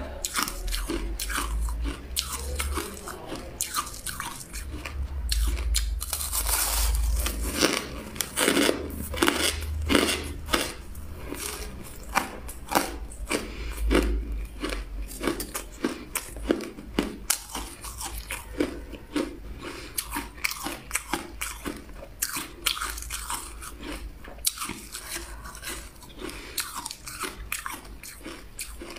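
Refrozen shaved ice with pieces of coloured jewelry ice being bitten and chewed: a dense run of sharp, crackly crunches, one after another throughout.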